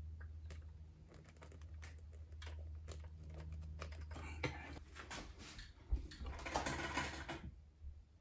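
Hands handling wiring and pushing small wire connectors together: a run of small clicks and rustles, busier and louder from about halfway through, over a low steady hum.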